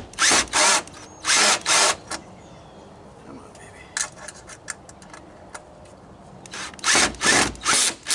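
Cordless drill with a socket bit driving a bolt into a truck bumper, run in short bursts: four quick bursts in the first two seconds, a few light clicks about four seconds in, then another run of bursts near the end.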